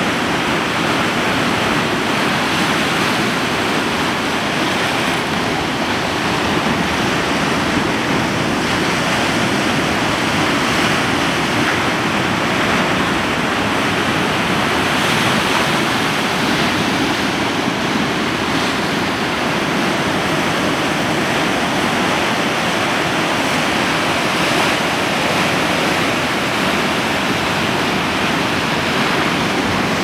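Ocean surf breaking and washing around a rocky sea stack, a steady rush of water.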